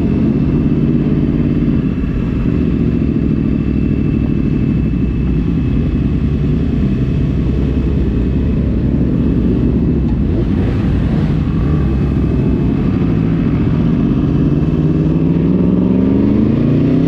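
Sport motorcycle engine running as the bike rides along, heard from the rider's seat, with the engine pitch climbing steadily over the last few seconds as it accelerates.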